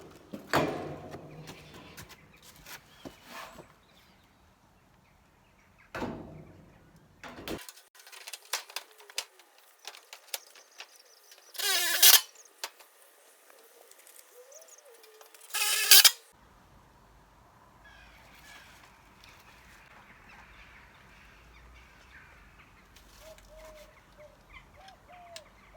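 Two short bursts of a cordless drill driving hex-head screws through the metal cladding sheet, about twelve and sixteen seconds in, with scattered knocks and clicks of handling between them.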